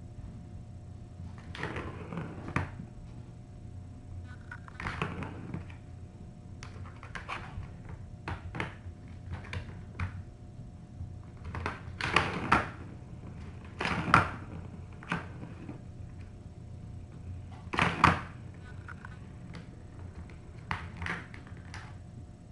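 Cats batting the balls around plastic ball-track toys: irregular clattering knocks and rattles of plastic, a few louder ones near the middle and about three-quarters through, over a faint steady hum.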